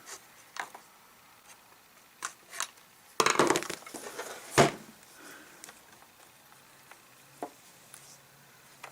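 Hands handling small parts and tools while fitting fuel line to a chainsaw's primer bulb: scattered clicks and knocks, a quick clatter about three seconds in and a sharp knock shortly after.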